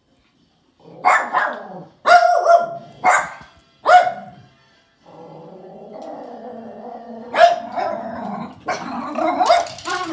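Small Yorkshire terrier barking: four sharp barks about a second apart, then a drawn-out growling sound from about five seconds in, breaking into more barks near the end.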